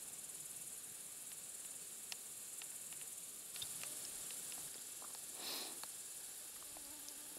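Steady high-pitched chirring of insects, with a few faint ticks and a brief soft rustle about five and a half seconds in.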